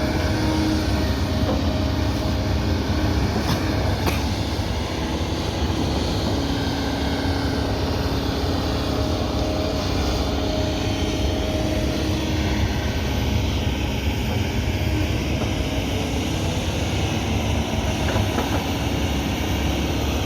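Kobelco 220 excavator's diesel engine running steadily, a constant drone with no revving.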